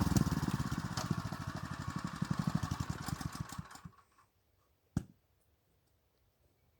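Honda GX200 single-cylinder four-stroke engine of a petrol tiller running at a slow, even beat, fading away and stopping about four seconds in. About a second later comes a single sharp knock.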